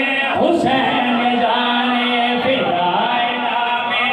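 Male voice singing a line of a devotional qasida through a microphone, with long drawn-out held notes.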